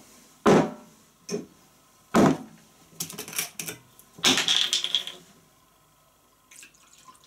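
A glass whiskey bottle and an empty tumbler being set down on a wooden table: a few sharp separate knocks, then a quick cluster of smaller knocks, and a longer rasping clatter about four seconds in as the bottle is handled. A few faint sounds follow near the end.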